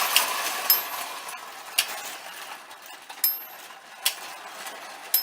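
Marx No. 400 wind-up toy locomotive running on tinplate track: its clockwork motor whirrs, fading as it goes. Sharp ticks come at uneven intervals, several of them ringing briefly from the engine's small bell.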